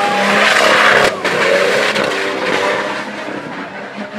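Off-road Jeep's engine revving hard as it pushes through a mud pit, loudest in the first second, then dropping in pitch and fading as it pulls away.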